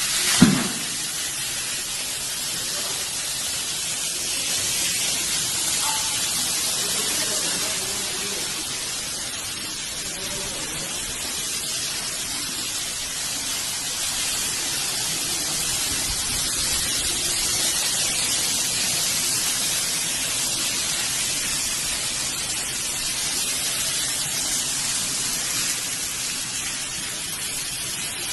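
Steady, even hiss of rushing water in heavy rain and floodwater, with a brief knock just after the start.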